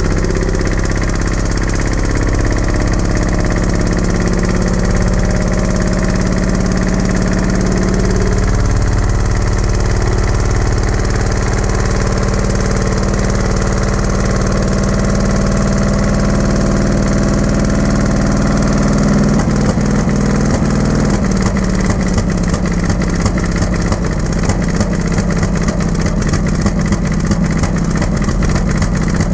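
The Caterpillar D7 3T's pony motor, its small starting engine, running steadily. About two-thirds of the way through the sound changes and takes on an even, rapid pulse as it rolls the big diesel over in low gear with compression released.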